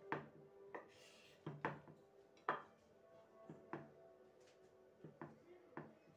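A folding knife knocking against a wooden cutting board while slicing cured meat: about eight sharp knocks at uneven intervals, the loudest about two and a half seconds in. Faint background music with held notes runs underneath.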